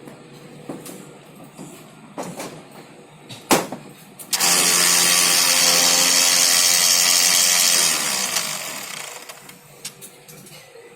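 Konica Minolta bizhub C258 copier running with a loud, steady grinding whir for about four seconds, then winding down and fading out; a few knocks and clicks come before it starts. The noise is the machine's fault, blamed on a blocked waste toner unit.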